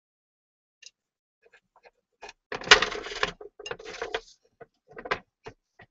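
A polishing cloth rubbed over the lacquered surface inside a kintsugi-repaired bowl: about a second of loud rubbing partway in, then a string of short scrapes and small knocks as the cloth and bowl are handled.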